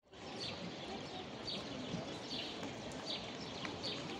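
Birds chirping: short high calls repeating about once a second over a steady wash of outdoor background noise.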